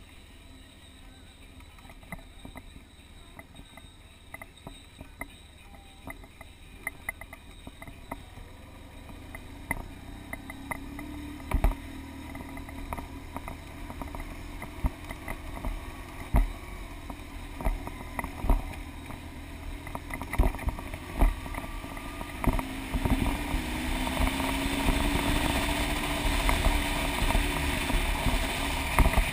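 BMW adventure motorcycle riding a gravel road: the engine runs under a steady low rumble, with frequent sharp knocks and clatter from the rough surface. Over the last several seconds the engine pitch rises and the wind on the camera microphone grows louder as the bike speeds up.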